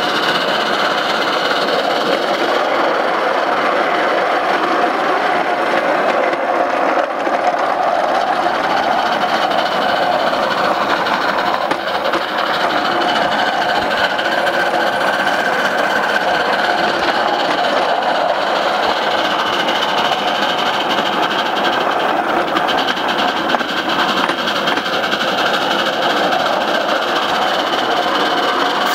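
Maxitrak Alice Quarry Hunslet miniature live-steam locomotive running along the track at speed: a steady, fast mechanical clatter of the engine and its wheels on the rails.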